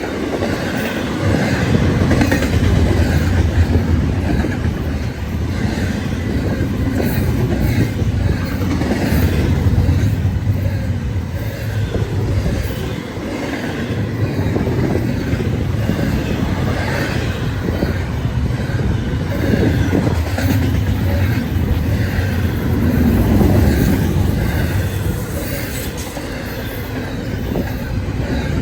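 Freight train rolling past at close range: steel wheels on the rails make a steady rumble, with clacking as they cross rail joints.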